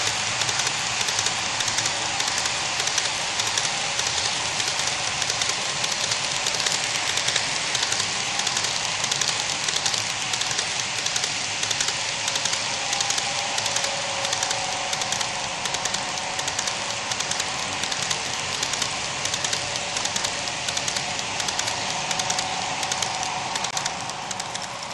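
HO-scale model freight cars rolling along the track: a steady rush of small metal wheels with rapid, dense clicking over the rail joints. It eases off near the end as the last car passes.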